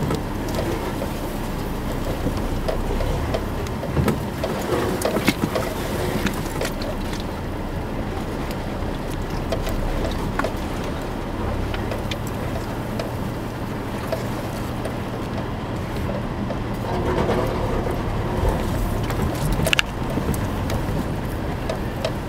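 Subaru's 2.5-litre SOHC flat-four engine running steadily as the car crawls along a rough dirt trail, heard from inside the cabin. The engine drone grows stronger about halfway through, and sharp knocks and rattles from the body going over bumps come now and then.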